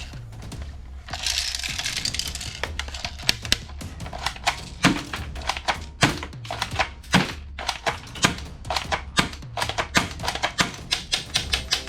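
Toy gun mechanisms clicking and snapping in quick, irregular succession over background music.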